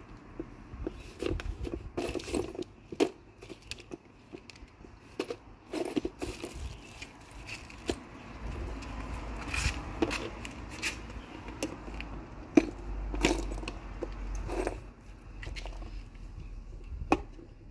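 Irregular clicks, taps and scrapes of hands handling a plastic outdoor wall lantern while fastening it to the wall.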